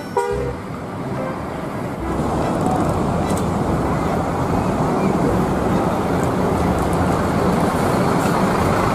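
Large intercity tour coaches driving past close by, their diesel engines running with tyre and road noise; the rumble grows louder about two seconds in as a coach pulls past. A short tone sounds right at the start.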